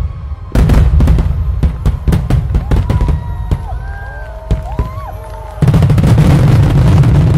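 Fireworks display: a dense barrage of shell bursts with deep booms and crackling, growing suddenly louder about five and a half seconds in. A few short gliding whoops rise and fall over it.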